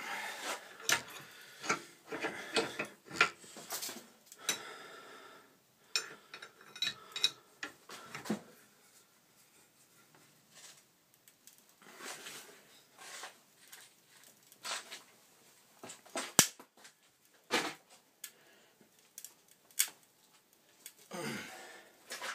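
Bench vise being cranked shut on a cordless screwdriver: irregular metallic clicks and clinks from the vise's sliding steel handle bar and screw, with one especially sharp click about two-thirds of the way through.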